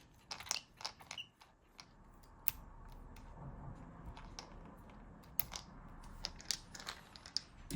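Ratcheting screwdriver being handled and worked: scattered, irregular clicks and creaks from its mechanism and selector.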